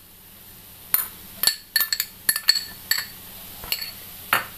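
Glass bowl clinking against the rim of a nonstick frying pan as grated coconut is knocked out of it: about eight short, sharp, irregularly spaced clinks with a slight ring, and a heavier knock near the end.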